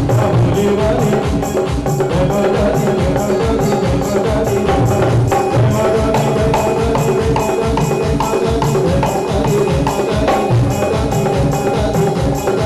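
Devotional music with a fast, steady percussion beat under held melody notes.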